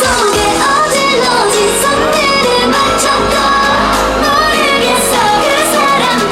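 Upbeat K-pop dance track played loud, with female group vocals singing over it.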